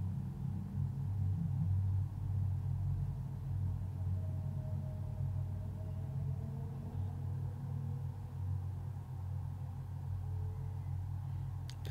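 A steady low hum, with a few faint, slowly drifting tones above it.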